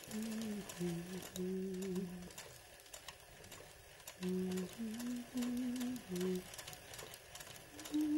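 A person humming a slow tune in held, wavering notes with short pauses between phrases. Under it runs the faint ticking of a sewing machine needle stitching embroidery.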